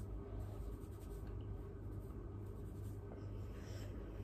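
Hands scrunching and rubbing curly hair, a faint scratchy rustle, over a steady low hum.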